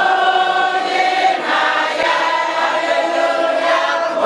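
A large congregation singing together as a choir, many voices holding long notes that shift about every second or two.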